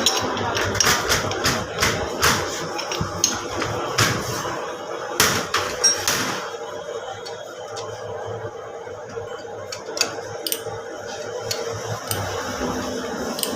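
Metal hand tools clinking and tapping on metal parts during diesel injection pump repair work. There is a dense run of sharp knocks in the first six seconds, then sparser clicks, over a steady hum.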